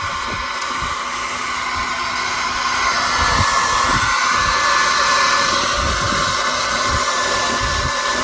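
Hair dryer running steadily: rushing air with a fixed whine, a little louder about three seconds in, with irregular low rumbles underneath.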